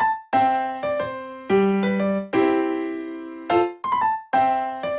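Background music: keyboard playing a run of struck chords, each fading away before the next one.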